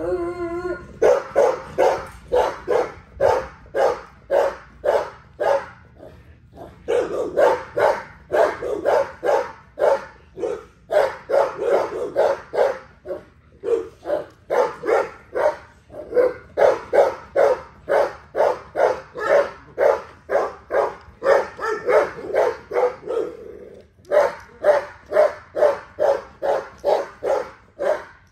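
Pit bull barking over and over, about two to three barks a second, in long runs with short breaks about six seconds in and again about twenty-four seconds in.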